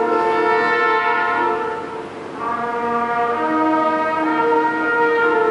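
Wind orchestra (concert band) playing full, held chords with prominent brass. The sound eases off briefly about two seconds in, then swells into the next sustained chord.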